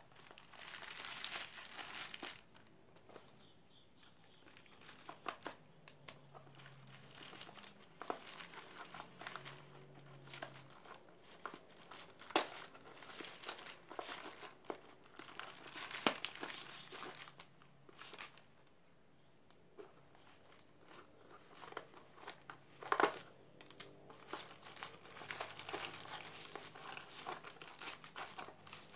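Plastic packaging crinkling and rustling in irregular bursts as hands pull a small cardboard box out of its clear plastic wrap and mailer bag, with a single sharp click a little under halfway through.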